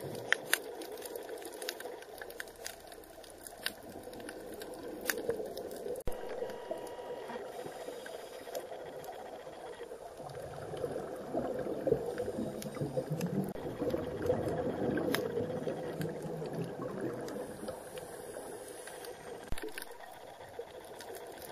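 Underwater sound picked up through a camera housing: scuba divers' exhaled air bubbling from their regulators, swelling louder in the second half, with scattered sharp clicks throughout.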